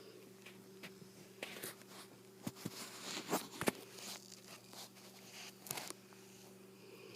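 Bullmastiff snoring softly in its sleep: a few breathy snores broken by sharp wet clicks and crackles from its mouth and throat. The loudest clicks come about three seconds in.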